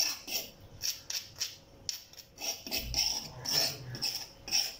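Ground garlic-and-salt paste being scraped off a stone pestle (ulekan) and mortar (cobek): a quick, irregular run of short scrapes, with a few soft knocks of stone.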